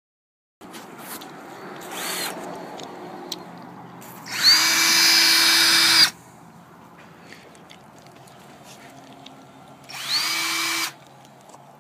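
Electric power drill run in three bursts, each spinning up with a quick rising whine and then holding steady. The longest and loudest comes about four seconds in and lasts nearly two seconds, with a shorter one near the end.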